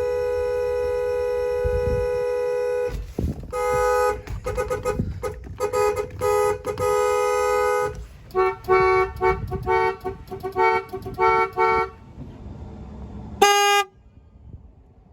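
School bus horn with a two-note tone. It is held in one long blast, then sounded in a string of quick short honks broken by a couple of longer blasts, and ends with a single short toot near the end.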